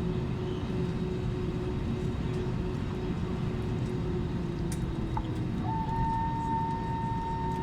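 Airbus A320neo cabin noise while taxiing after landing: a steady low rumble with an engine hum. About four seconds in the hum dips slightly in pitch, and shortly after a new steady higher-pitched whine comes in.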